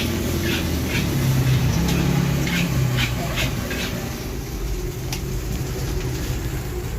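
Metal spatula scraping on a wok as fried rice is cooked: short strokes about every half second through the first few seconds, then sparser, with a sharp click about five seconds in. Under it runs a steady low rumble with a pitched hum that swells and fades in the first half.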